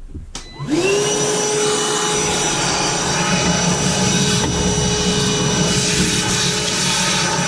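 Shop vacuum switched on about a second in, its motor spinning up to a steady whine and then running evenly, used to clean out the clogged burner area of a gas water heater.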